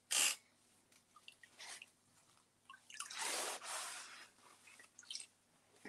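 A damp abrasive finishing pad scrubbing over the painted metal front of a file cabinet, in wet rubbing strokes: a short swipe at the start and a longer stretch of scrubbing about three seconds in. The pad is taking off part of a dried rust-effect finish.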